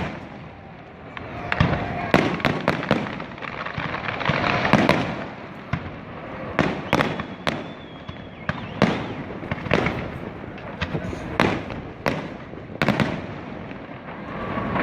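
Fireworks display: a run of sharp bangs from aerial shells bursting, irregularly spaced and sometimes in quick clusters, after a quieter first second.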